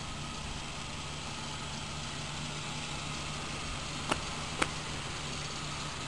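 A vehicle engine idling steadily with a low, even hum, broken by two sharp clicks about half a second apart a little past the middle.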